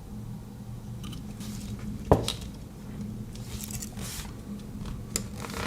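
Metal clicks and light taps of a Victorinox Farmer X Alox Swiss Army knife being handled, its tools and metal scales knocking together. The loudest is one sharp click about two seconds in. A steady low hum runs underneath.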